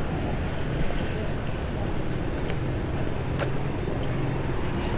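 Steady low rumble of city street traffic, with a few faint clicks over it.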